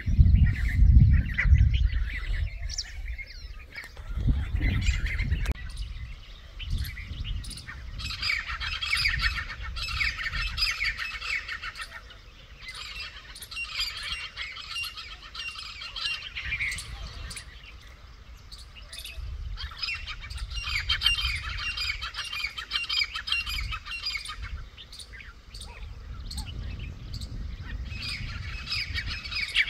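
Grey francolins (titar) calling in four bouts of harsh, rapid squawking chatter, each a few seconds long, the sound of a covey quarrelling with an intruding covey over territory. Low rumbles on the microphone in the first few seconds.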